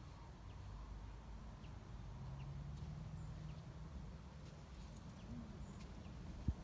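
Faint outdoor background: a low steady rumble with a few light ticks, and one sharp knock near the end.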